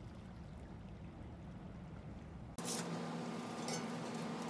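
Low rumble of wind and surf on a sandy beach. About two and a half seconds in this cuts off abruptly: a steady low hum follows, with scattered clicks as an old, burnt-out mesh camping brazier is handled with gloved hands.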